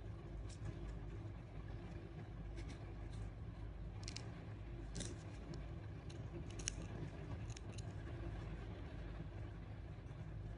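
Spring-loaded thread snips clicking shut as they trim yarn tails, a handful of small sharp snips bunched from about four to eight seconds in, over a faint steady low rumble.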